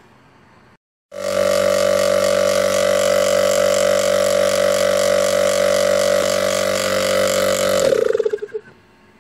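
Opened-up hermetic refrigeration compressor running on its single-phase induction motor, a loud steady hum with a strong tone and a hissing rattle above it. It starts suddenly about a second in and, near the end, switches off and winds down with a falling pitch.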